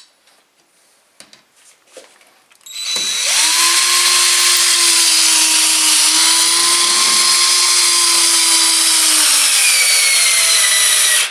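Electric drill boring into a brick wall: it starts about three seconds in, spins up quickly and runs steadily for some eight seconds, then stops abruptly.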